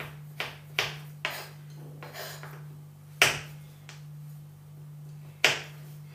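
Knife chopping a chocolate bar on a wooden cutting board: a series of sharp, irregular knocks of the blade on the board, the loudest about three seconds in and another near the end, over a steady low hum.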